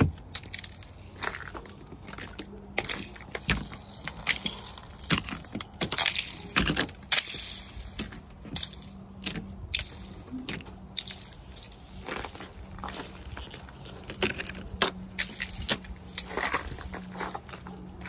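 A thin glaze of ice cracking and crunching as fingers press it and peel it off a car's painted body panels, in many irregular sharp snaps.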